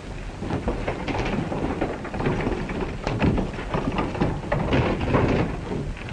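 Wooden glider wreckage dragged and scraped over rocky ground, with irregular knocks and clatter throughout.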